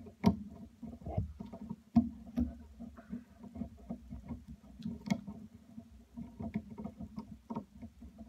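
Close handling noise of a wire and washer being fitted by hand onto a screw terminal on a wooden pedal contact board: scattered small clicks and taps of metal hardware, with one sharper knock about two seconds in.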